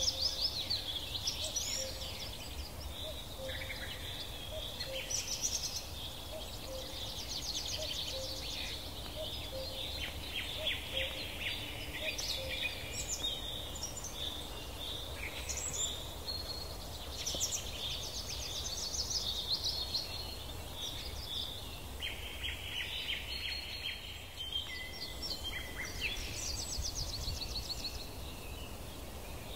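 Several songbirds singing at once, a dense mix of high chirps and trills that keeps going throughout. Beneath it a faint low note repeats about once a second until about halfway through, over a steady low rumble.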